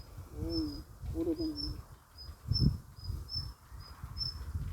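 Background chirping: short, high notes repeating about twice a second, over a low rumble. A single low thump comes about two and a half seconds in.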